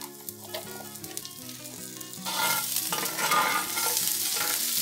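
Sliced onion frying in asiento (pork lard) in a glazed clay cazuela, crackling and sizzling with scattered pops. A little over two seconds in the sizzle grows much louder as a metal spoon stirs the onions through the hot fat.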